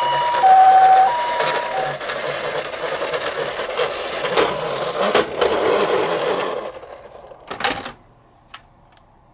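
Toy ambulance's electronic two-tone siren, switching back and forth between a higher and a lower note, cuts off about two seconds in. A rattling whir with a few sharp knocks follows as the toy rolls, fading out about seven seconds in, then a couple of faint clicks.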